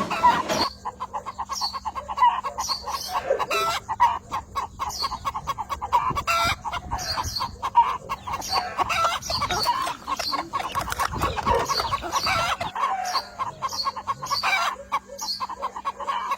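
Birds calling: many short calls in quick succession, over a steady low hum that stops suddenly about three-quarters of the way through.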